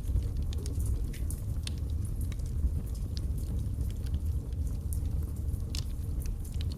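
Wood logs burning in a fireplace: a steady low rumble of the flames with frequent sharp, irregular crackles and pops.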